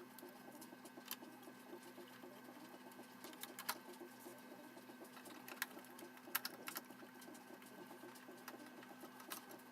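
Faint, sped-up sound of screws being taken out of an iMac G3's logic board: a fast fluttery chatter with a few sharp clicks scattered through it.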